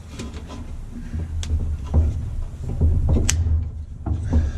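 Metal retaining clips on a washing machine being handled and worked back into place: low knocks and rattles, with two sharp clicks about one and a half and three seconds in.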